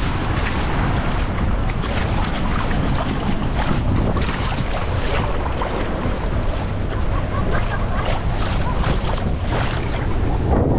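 Heavy wind noise on the microphone over shallow sea water lapping and splashing close by, with many short splashy crackles in a steady wash.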